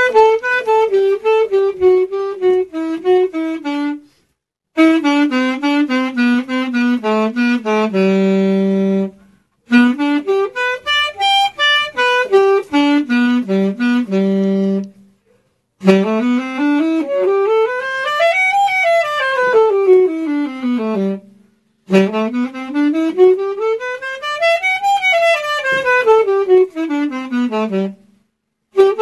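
A single reedy instrument plays a melody of stepwise descending phrases, broken by short silences, then two fast runs up and down a scale spanning about two octaves.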